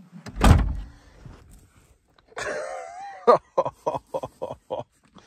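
A camper van's door thuds shut about half a second in. Later comes a short wavering vocal sound, then a quick run of about six short vocal pulses, three to four a second.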